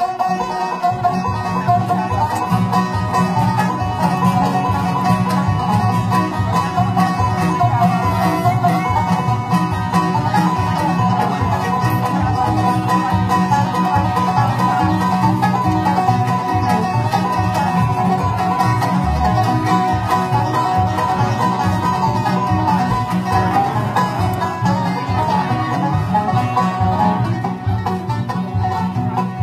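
Bluegrass band playing an instrumental: banjo picking over guitar, with sustained lead notes held above.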